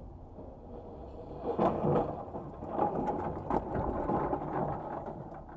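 Car cabin noise on a wet road: a low rumble that grows louder and rougher about a second and a half in, full of small knocks and crackles like spatter and bumps on the car body.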